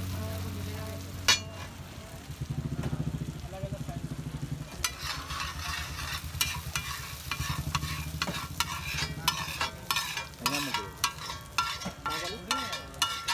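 Egg mixture frying on a large flat iron griddle while a steel tumbler stirs and mashes it in quick rhythmic strokes. From about five seconds in, a metal spatula scrapes and knocks against the griddle in many sharp clicks as the egg is scraped up.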